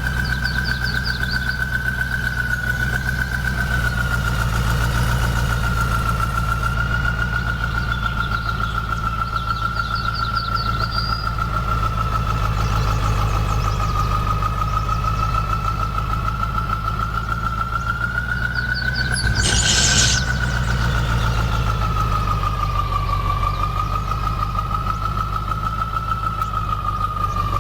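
Engine idling steadily, with a steady high-pitched whine that drifts slightly in pitch. A short burst of hiss comes about two-thirds of the way through.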